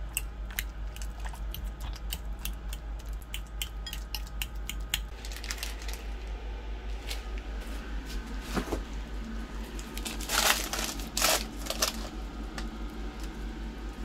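A metal fork clicks and scrapes against a ceramic bowl in quick, irregular strokes while mashing avocado. About ten seconds in, a plastic zip-top bag crinkles loudly for a couple of seconds. A steady low hum runs underneath throughout.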